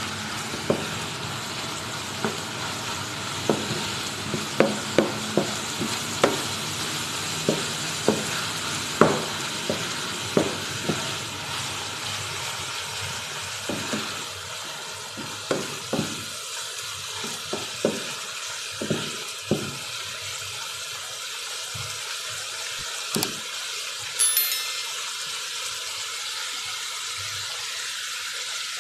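Chicken strips, carrot, onion and green pepper sizzling as they fry in a non-stick pan, with a wooden spatula knocking and scraping against the pan as they are stirred. The knocks thin out after about twenty seconds, leaving steady sizzling, with one brief clink a little after twenty seconds.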